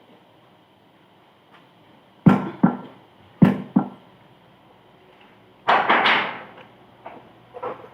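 Sharp metal knocks in two pairs, each with a short ring, then a brief rattling clatter about two-thirds of the way through, as parts of a truck's steering gearbox are worked loose during disassembly.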